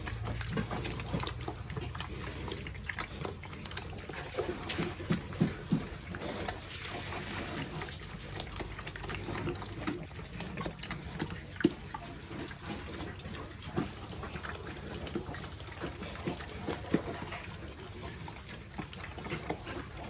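Pigs and piglets eating wet feed at a trough: irregular wet chomping, smacking and slurping throughout.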